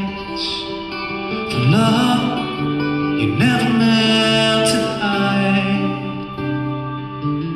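Progressive rock band playing live: voices holding long sung notes over acoustic guitar, bass, keyboards and drums, with new phrases sliding in twice.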